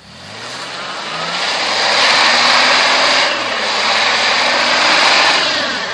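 Mitsubishi Pajero engine revving hard while its all-terrain tyres spin in deep snow and slush, a loud rushing of churning tyres and thrown snow over the engine note: the vehicle is stuck. The noise builds over about two seconds, holds, then dies away near the end.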